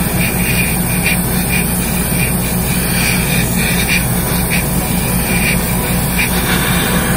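Hobby paint spray booth's extractor fan running with a steady rush of air and a low hum.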